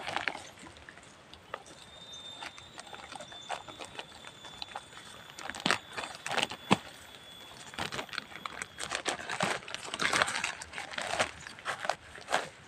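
Hands working damp soil and a plastic polybag around a durian seedling's root ball: scattered rustles, crinkles and sharp clicks, busier in the second half. A thin steady high tone runs from about two seconds in until about nine.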